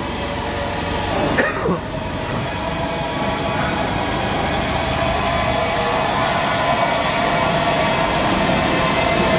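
Steady shop-floor noise of a pipe fabrication workshop: a constant machinery hum and hiss with a faint steady tone, growing slowly louder.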